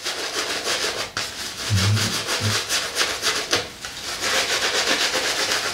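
Shaving brush face-lathering shaving soap, its bristles swishing against wet stubble in quick repeated strokes, several a second.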